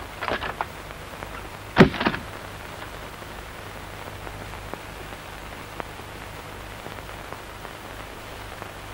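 Steady hiss of rain, with a few soft knocks at the start and a single loud thump about two seconds in.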